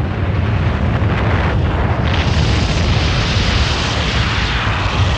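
Avalanche rumbling: a loud, continuous deep rumble with a rushing hiss of snow that swells about two seconds in.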